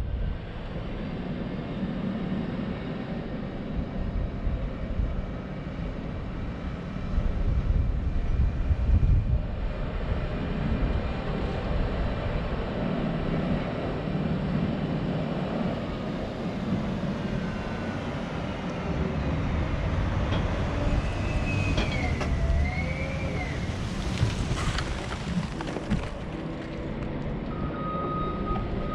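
Diesel engine of snow-plowing heavy equipment running steadily with a low rumble. About two-thirds of the way through, a squealing tone bends up and down, and a steady high tone comes in near the end.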